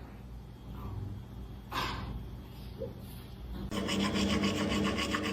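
A dog crunching dry kibble, a rapid rasping crunch that starts about two-thirds of the way in, after a quiet stretch with a single knock.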